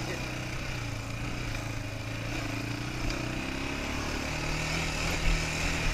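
Quad bike (ATV) engine running steadily as it climbs, its pitch rising a little about two-thirds of the way through.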